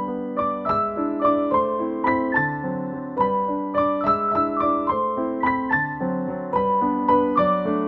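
Background piano music: single notes and chords struck at an even pace, about three a second.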